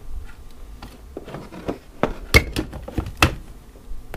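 Several sharp plastic clicks and knocks, two louder ones a little under a second apart in the second half, as a hand blender's motor unit is seated and locked onto its chopper bowl lid.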